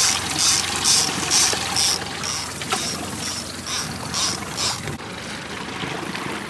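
A freshly caught salmon thrashing in a boat's fish box, splashing in quick, even beats about twice a second that weaken after a couple of seconds and stop about two-thirds of the way in.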